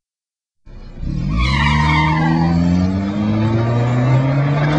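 A car pulling away hard after a brief silent gap: the tyres squeal for a second or so as it launches, and the engine revs steadily higher as it accelerates away, until the sound cuts off abruptly.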